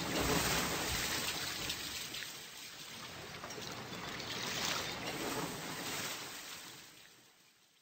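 Rushing water sound, an even hiss-like wash that swells and ebbs and fades away near the end.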